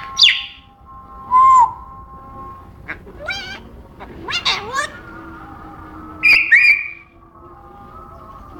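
African grey parrot whistling and calling: a string of separate whistles and warbling chirps, the loudest a whistle about a second and a half in and two high whistles a little after six seconds.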